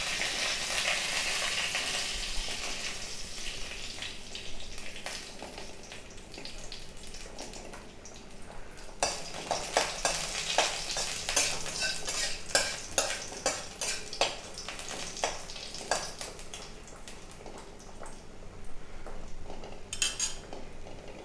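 Panch phoron and dried red chillies sizzling in hot oil in an aluminium kadai, the sizzle fading over the first few seconds. About nine seconds in comes a run of short clinks and scrapes, metal spatula on the pan, and a few more near the end.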